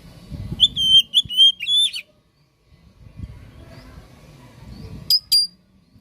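Oriental magpie-robin (kacer) singing: a quick run of about five clear whistled notes, then after a pause two short, sharp high calls near the end, over a faint low background noise.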